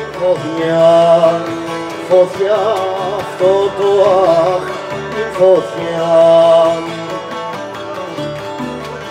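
A man sings a wavering melody, accompanied by two plucked lutes. The voice stops about seven seconds in, and the lutes play on alone.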